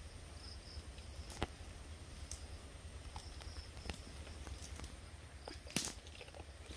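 Quiet night-time woodland background with a faint high chirping that comes and goes and a few sharp clicks or snaps, one about a second and a half in and the loudest near six seconds in.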